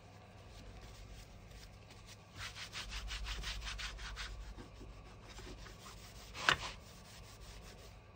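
Paper towel rubbed briskly back and forth over a flat board's surface: quick rubbing strokes for about two seconds, then a single short, louder swipe a couple of seconds later.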